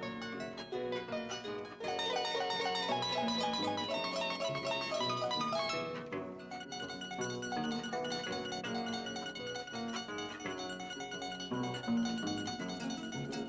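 Instrumental son jarocho music: a Veracruz harp playing quick plucked runs over plucked-string accompaniment, with a brief dip about six seconds in.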